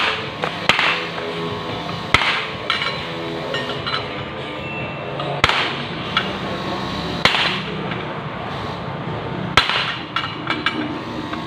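Metal tools knocking and clinking on metal parts, sharp single knocks every second or two at an irregular pace, over a steady low hum.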